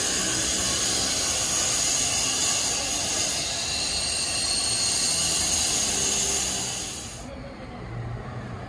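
Steady loud hiss with high-pitched ringing bands, ending abruptly about seven seconds in, after which a quieter low hum remains.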